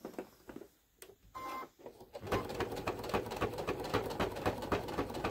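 Domestic sewing machine starting up a little over two seconds in and stitching at a steady fast pace, sewing down the folded binding along a quilt's edge. Before it starts there are a few soft handling clicks and one short tone.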